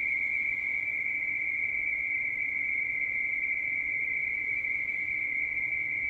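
Radioteletype (RTTY) data signal received on the 30 m amateur band through a shortwave transceiver's speaker: a steady, high-pitched two-tone data tone over faint band hiss.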